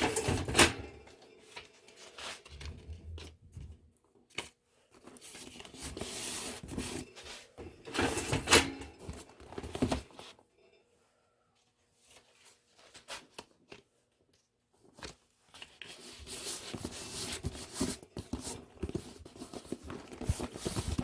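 Cardboard shipping box being taped and handled by hand: strips of gummed tape pressed and rubbed down onto the cardboard, with rustling, scraping and sharp knocks, broken by short pauses.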